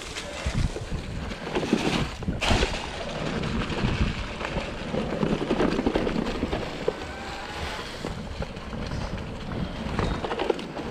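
Wind buffeting the microphone as an e-mountain bike rolls along a dirt trail, with tyre noise and many short knocks and rattles over the bumps.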